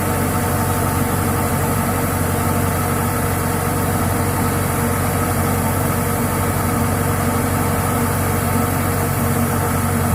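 Rice combine harvester's diesel engine running steadily at a constant speed.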